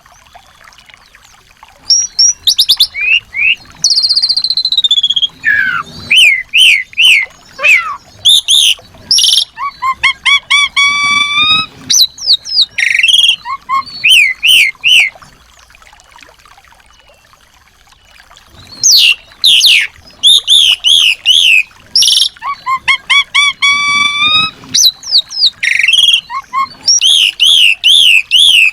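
Small songbird singing loud, rapid phrases of chirps, trills and whistles, with a pause of about three seconds midway.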